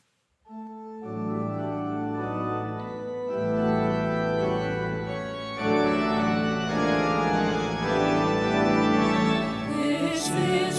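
Organ playing slow, sustained chords that change every couple of seconds, opening a hymn. It comes in after a brief silence.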